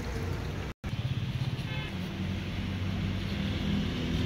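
A steady low mechanical rumble with a hum, like a running engine or machine, with a brief drop to complete silence just under a second in.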